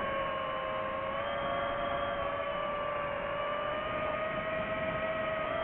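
FPV quadcopter's motors and propellers whining in flight: a steady, buzzing hum whose pitch shifts slightly with throttle, stepping up about a second in.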